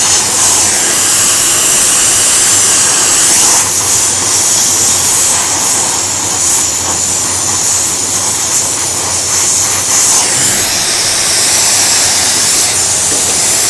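Oxy-acetylene welding torch flame, hissing steadily.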